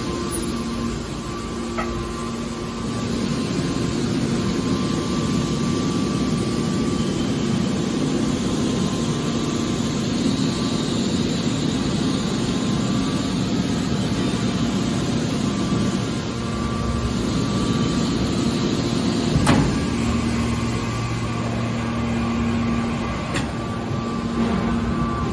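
Hydraulic scrap metal baler running: a steady machine hum with a sharp clank about 19 seconds in.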